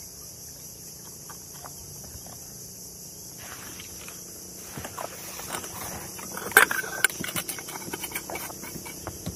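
Steady high-pitched insect chorus, probably crickets or cicadas from the shore. Over it, in the second half, come scattered small clicks and knocks of gear being handled on the kayak, the sharpest about six and a half seconds in.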